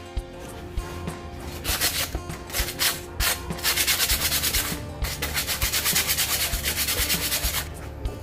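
Sandpaper rubbed by hand over the rusty metal of an old kerosene lamp, scraping back and forth. A few separate strokes at first, then a fast, steady run of about five strokes a second from about three and a half seconds until shortly before the end, with background music underneath.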